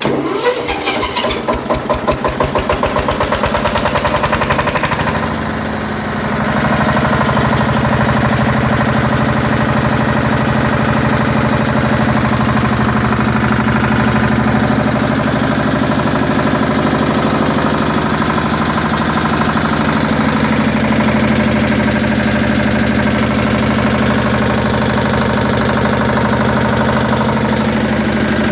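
A 7.5 kVA air-cooled diesel generator engine starts, its firing quickly picking up speed, dips briefly about five seconds in, then settles into steady running.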